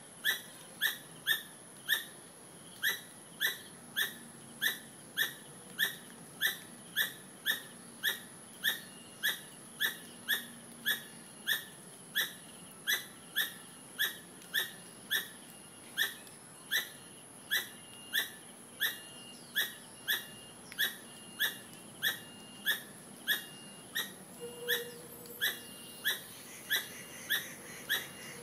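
A squirrel calling over and over: short, sharp, rising squeaky calls repeated evenly, a little under two a second, without pause. The uploader takes it for a mother calling a missing baby.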